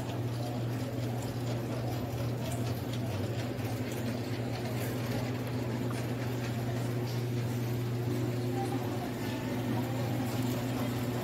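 Steady low mechanical hum with a few higher tones above it, over a faint background haze with scattered small clicks.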